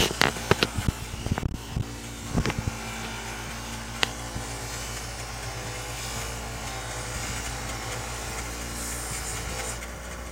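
A small electric polishing tool running steadily while buffing the nickel-plated parts of a Willcox and Gibbs sewing machine. Several sharp clicks and knocks in the first few seconds come from parts being handled.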